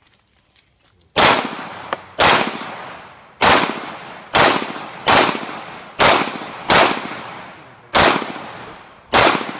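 A string of nine gunshots fired at an uneven pace of about one a second, starting about a second in, each loud report followed by a long fading echo.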